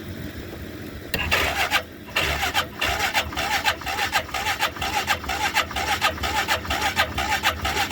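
Hisun side-by-side's engine being turned over by its electric starter on jumper cables, starting about a second in, pausing briefly, then cranking in an even rhythm of about three turns a second without firing. This is a cold, long-unused engine that does not catch; the owner suspects a carburettor issue.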